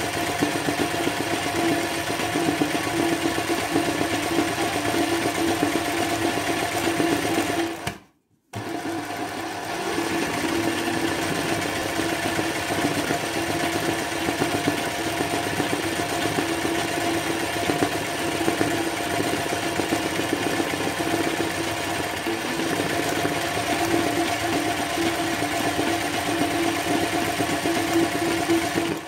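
Sewing machine running steadily at speed, doing free-motion zigzag (satin) fill embroidery on a flower. It breaks off briefly about eight seconds in, then runs on and stops abruptly at the end.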